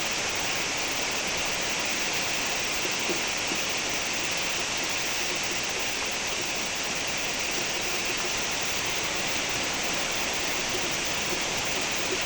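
Steady rainfall: a dense, even hiss of rain that holds at one level throughout.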